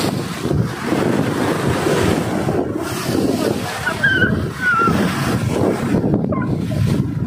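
Surf washing against a rocky reef shore, with wind buffeting the microphone. A couple of short, faint high squeaks come about four and five seconds in.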